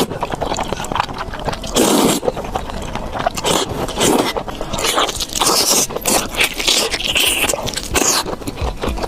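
Close-miked eating: biting into and chewing food, with many quick clicks and mouth noises.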